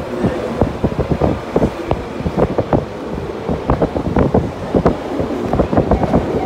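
Wind rushing in through an open train window, buffeting the microphone in many irregular thumps over the steady running noise of the train.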